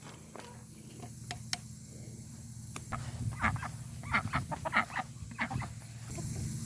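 A few sharp clicks, then from about halfway through a run of seven or eight short, separate animal calls.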